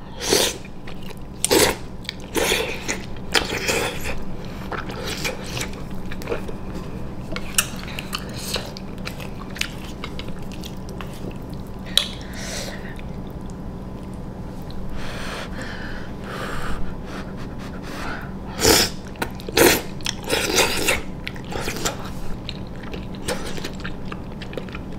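A person slurping and chewing spicy instant noodles, with wet mouth sounds and irregular short smacks and slurps, the loudest about two-thirds of the way in.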